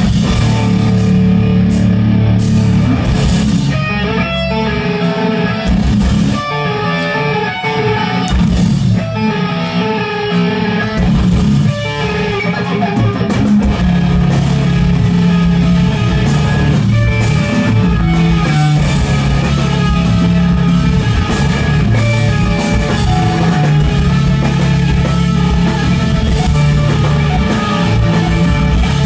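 Rock band playing live, loud distorted electric guitar over bass and drums. The bass and drums drop back for a thinner, guitar-led passage from about four to twelve seconds in, then the full band comes back in.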